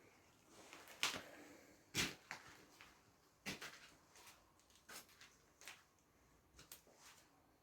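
A series of irregular sharp knocks and clatters, roughly a second apart, with faint rustling between them.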